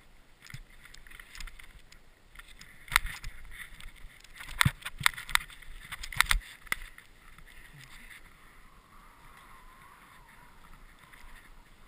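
Snowboard sliding and scraping over snow, with a run of sharp knocks and scrapes from about three to six and a half seconds in as the board rides over the bumpy track.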